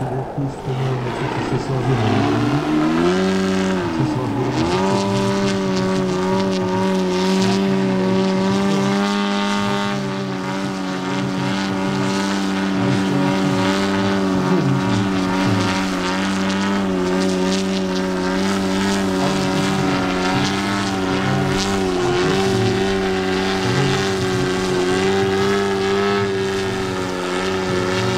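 Hornet HE125 125cc petrol engine and 29x12-inch propeller of a Carbon Cub Superlight RC model plane running in flight. Its pitch dips and rises twice in the first few seconds, then holds steady with slight wavering.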